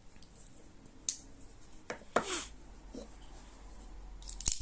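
Folding knives being handled: a few separate light clicks and rubs, then a quick cluster of clicks near the end.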